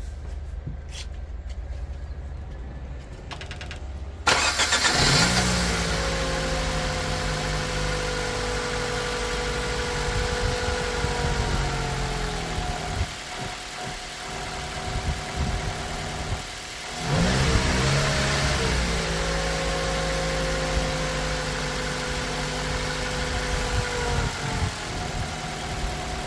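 The 2009 Mitsubishi Colt's 1.3-litre petrol four-cylinder engine starts up about four seconds in. Its speed rises, holds for several seconds, then drops back to idle. It rises and settles again about 17 seconds in. With a replacement ignition coil on cylinder 4, it runs smoothly on all four cylinders, the earlier misfire cured.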